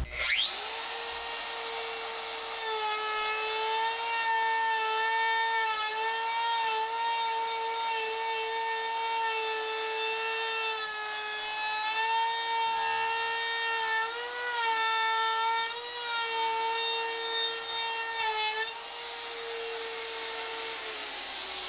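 DeWalt compact router spinning up to a steady high whine, then cutting along the edge of a wooden board, first backwards in a climb cut and then forward in a finishing pass; the pitch wavers and dips as the bit bites. Near the end the motor is switched off and winds down with a falling pitch.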